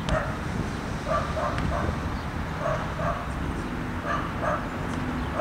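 A dog barking in short, clipped yaps, mostly in pairs, over wind rumbling on the microphone. A basketball bounces on the court near the start and again near the end.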